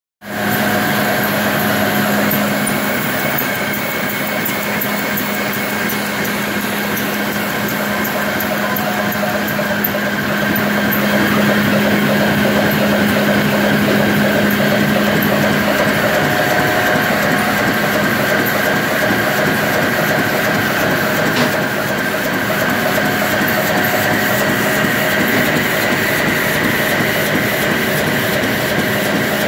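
Bograma BSR 550 Servo rotary die-cutting machine running at production speed, about 10,000 sheets an hour: a loud, steady mechanical hum with a constant tone and a fast, regular ticking.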